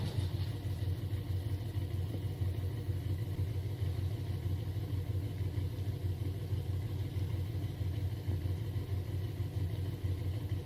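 Heavy vehicle engine running steadily, a low even sound without changes in pitch.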